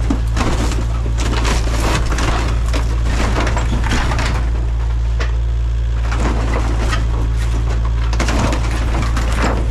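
Kubota KX057-5 mini excavator's diesel engine running steadily while its bucket and thumb claw tear into a minibus roof, with repeated crunching, cracking and scraping of the bus body. The crunching comes thickest in the first few seconds and again near the end, with a lull in the middle.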